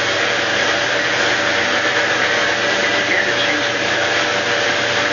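Steady, loud rushing noise with a constant faint hum tone running through it, sharply cut off above about 8 kHz where the recording has been low-pass filtered.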